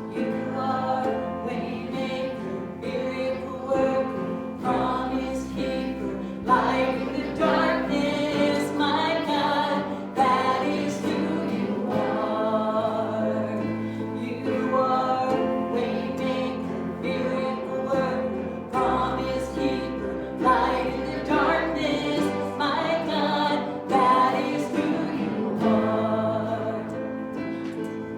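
Gospel worship music: a group of voices singing with instrumental accompaniment, over a bass line that changes note every second or two.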